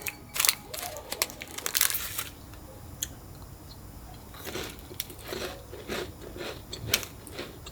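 Dog chewing and crunching on food, in clusters of sharp crunches near the start and again in the second half, with a quieter pause between.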